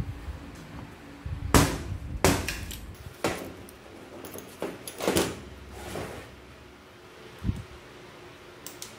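Handling noise from an electric jigsaw being taken apart with hex keys: several separate metal knocks and clinks of the tool's housing and the keys against the bench. The loudest knock comes about one and a half seconds in, and the sounds get quieter towards the end.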